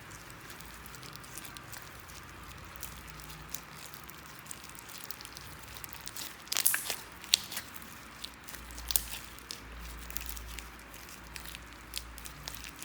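Slime being squished and kneaded by hand, giving scattered sticky clicks and crackles, with a louder cluster about six and a half seconds in.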